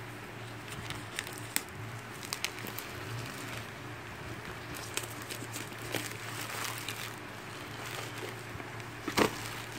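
Light clicks and taps of a small cardboard phone box being handled and turned over loose bubble wrap, with one louder knock about nine seconds in, over a steady low background hum.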